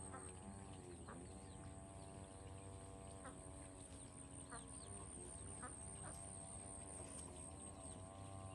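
Farm poultry calling in long, wavering notes, with short high chirps and a steady high-pitched hum behind them.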